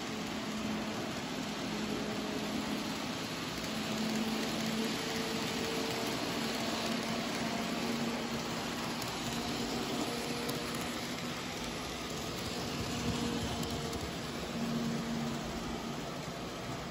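N-scale model freight train rolling along its track: a steady, even rolling hiss with a faint hum that comes and goes.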